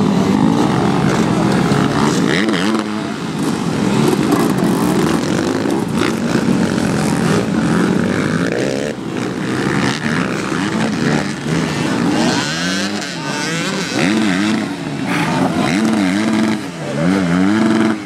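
Several off-road dirt bike engines revving up and down over and over as riders pick their way through a rough obstacle section.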